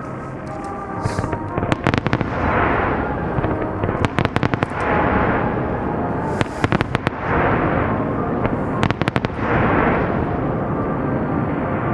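Aerial fireworks bursting in four rapid clusters of sharp bangs about every two and a half seconds, each cluster followed by a swelling hiss.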